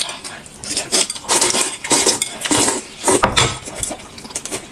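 Eating utensils clicking and scraping against bowls and dishes during a meal, in irregular short clatters.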